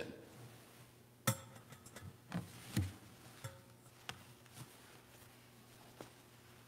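Scattered light knocks and clicks of objects being handled on an altar, the sharpest about a second in, with smaller ones every half second or so, over a faint steady hum.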